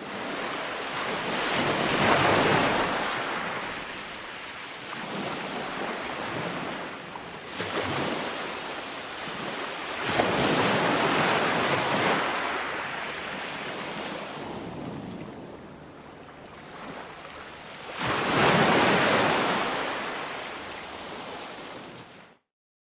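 Ocean waves breaking on a shore, surging and washing back, with the loudest breaks about 2 seconds in, around 10 to 12 seconds, and near 19 seconds. The sound cuts out abruptly just before the end.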